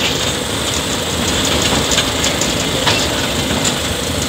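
Colonial-era steam train running along the track, heard from on board: a steady rumble and hiss with a few sharp clicks.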